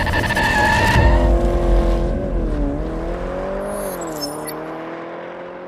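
A car engine sound, its pitch wavering up and down, fading out gradually toward the end.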